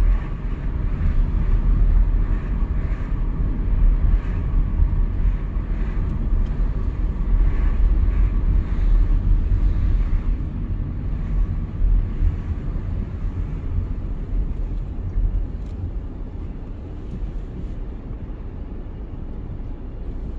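Car driving along a city road: steady low rumble of engine and road noise, easing off and growing quieter over the last few seconds as the car slows to a stop.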